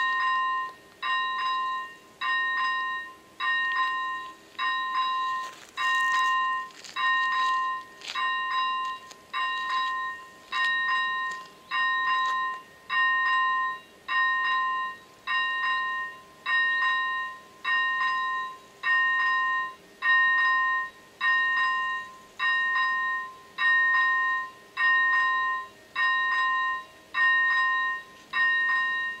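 ZV-01 electronic level-crossing bell striking evenly about once a second, each stroke a bright ding that dies away. It starts suddenly and means the crossing has been activated for an approaching train.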